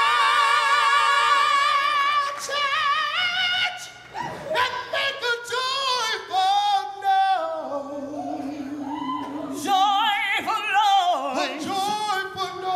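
Gospel singers ad-libbing with little or no accompaniment. A long high note is held with wide vibrato, then after about two and a half seconds a man and a woman trade melismatic runs.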